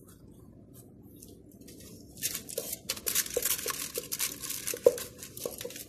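Aluminium foil lining a cooking pot crinkling and rustling as gloved hands press potato slices into place, starting about two seconds in, with small clicks and one sharper tick near the end.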